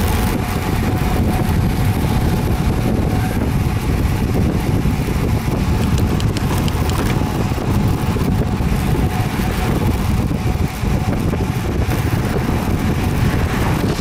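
Strong wind buffeting the microphone of a camera carried on a moving bicycle: a loud, steady rumble of wind noise.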